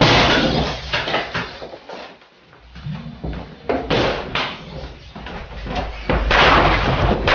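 A sudden loud crash, then a run of noisy bangs and knocks, with a short lull about two seconds in and the loudest stretch near the end.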